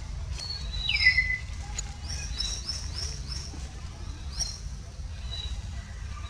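Forest birds calling: a downward-sliding whistle about a second in, then a quick run of about five rising chirps and one more a second later, over a low steady rumble.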